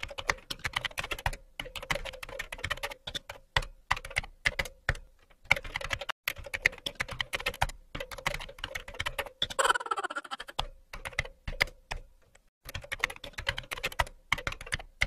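Rapid keyboard typing clicks in bursts broken by short pauses, a typing sound effect.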